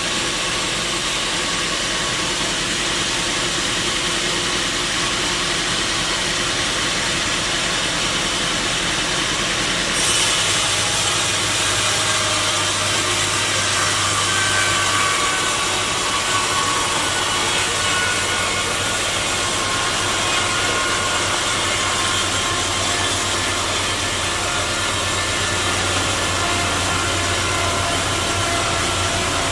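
Sawmill machinery running steadily, an engine-driven saw cutting timber. The sound changes abruptly about ten seconds in, when a low steady hum comes in, and faint whining tones slide in pitch for a few seconds after that.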